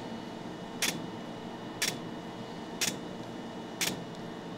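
Laser hair removal handpiece firing pulses, a sharp click with each pulse, about one a second, four times.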